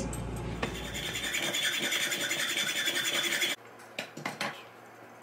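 Steady metal-cutting noise of a seized stainless steel bolt being cut off a kiln's porcelain element terminal block, stopping abruptly about three and a half seconds in, followed by a few light clicks.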